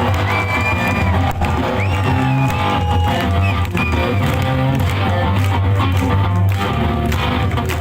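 Live rock music, loud: an electric guitar playing a riff with bent notes over drums.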